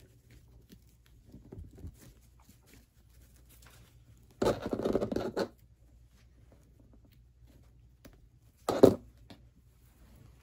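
Light rustling as a fabric gingham ribbon is handled and tied into a bow, with a louder scraping rustle of the ribbon lasting about a second a few seconds in. Near the end, a single sharp knock as scissors are set down on the table.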